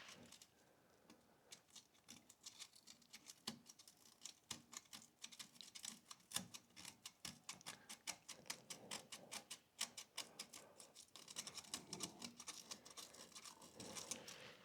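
A folded strip of emery cloth rubbed back and forth over two small electrical switch contacts to clean them: a faint, fast run of scratchy ticks, several a second.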